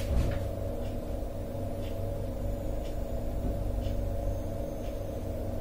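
Steady room hum with several held low tones, and a few faint rustles of paper sheets being leafed through.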